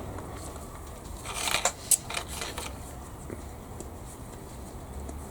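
Handling of a plastic dropper bottle of acrylic modelling paint: a cluster of small clicks and rattles about a second and a half in, over a low steady hum.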